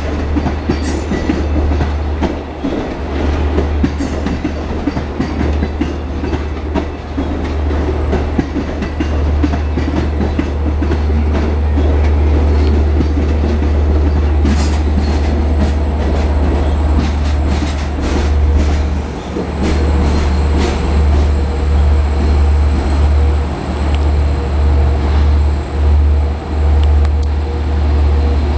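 Long Island Rail Road train of Kawasaki C3 bilevel coaches and EMD DE30AC diesel locomotives moving slowly, with wheels clacking over rail joints and a steady low rumble.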